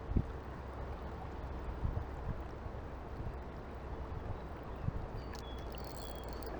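Mountain stream water rushing steadily, with a few soft knocks.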